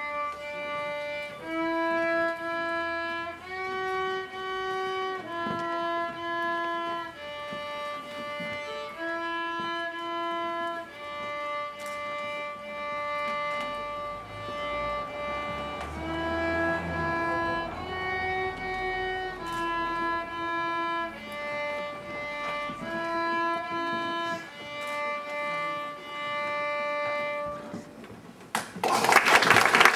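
Beginner child violinist playing a simple melody on the violin, slow separate bowed notes of about a second and a half each. Applause breaks out near the end.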